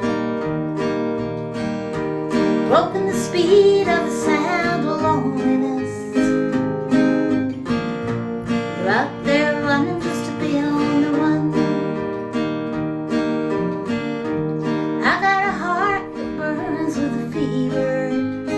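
Acoustic guitar strummed, with a wavering lead melody over it several times: an instrumental break in a country-folk song.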